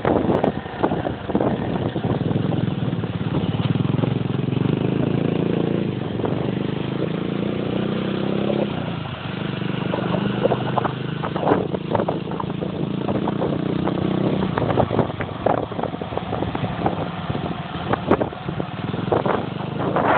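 A motor vehicle's engine running under way, its pitch climbing and falling back a couple of times, with scattered knocks and road noise.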